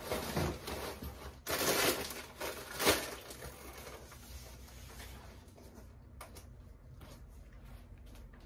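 Rustling and crinkling of goods and packing material being handled in a cardboard box, loudest in a few bursts in the first three seconds, then dying down to faint handling clicks.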